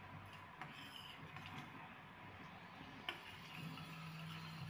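Faint scattered ticks and clicks from a pan of sugar syrup being cooked down and stirred, over a low steady hum.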